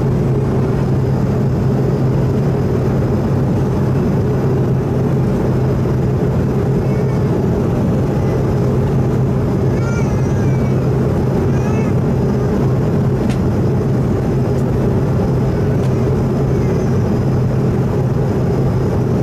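Steady drone of an Airbus A220-100 passenger cabin, with a strong low hum under an even rush of air and machinery noise. Faint voices come through now and then.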